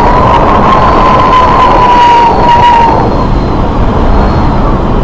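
Loud wind and sea noise on the microphone of a small boat running through rough water. A steady high whine, drifting slowly down in pitch, runs over it and stops about three seconds in.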